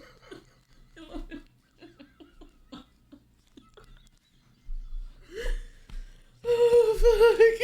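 Short, soft bursts of laughter and breathing, then about six and a half seconds in a loud, sustained, wavering pitched voice-like sound begins.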